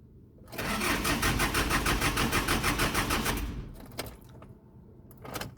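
Hyundai H100 diesel engine cranking on the starter for about three seconds with a rapid, even pulsing, then stopping without catching, followed by a couple of clicks. A hard start: the glow plugs are not being heated because the glow plug control module is broken.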